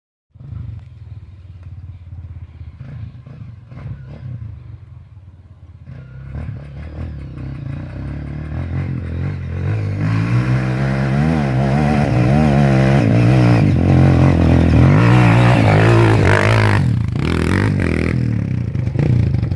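Single-cylinder four-stroke trail motorcycle engine running, quieter with scattered clattering at first, then growing louder from about six seconds in. The revs rise and fall repeatedly under throttle, with a brief dip near the end, as on a gear change.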